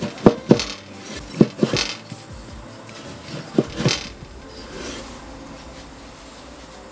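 Chef's knife slicing through a tomato and knocking on a wooden cutting board: sharp knocks in three quick groups of two or three within the first four seconds, then quieter.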